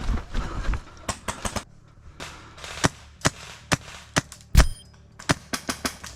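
Airsoft guns firing single shots in an irregular exchange: about a dozen and a half sharp cracks at uneven spacing, the loudest a little past halfway.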